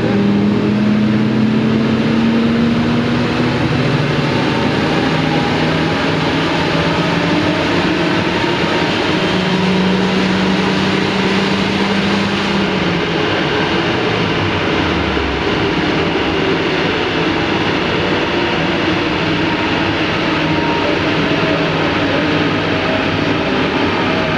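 Toyota Yaris T-Sport's supercharged 1.5-litre 1NZ-FE four-cylinder running hard on a chassis dyno, under a loud, steady rushing noise. Its pitch rises slightly near the start and drops away about halfway.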